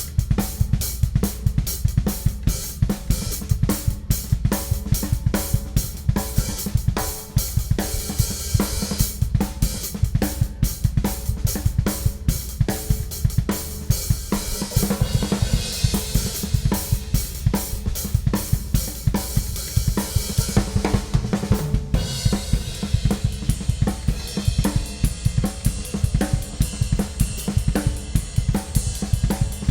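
Ludwig Classic Maple drum kit played in a fast, continuous groove with snare, bass drum, toms, hi-hat and crash and ride cymbals. The cymbal wash swells about halfway through and changes character about two-thirds of the way in.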